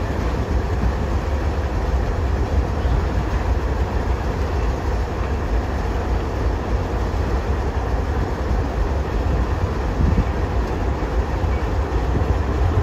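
Alco C420 diesel-electric locomotive passing, a steady low engine sound mixed with wheel and rail noise.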